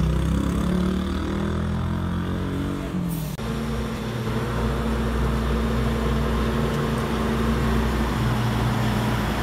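Engine of a large armored eight-wheeled truck running with a steady low rumble. The sound shifts abruptly about three seconds in.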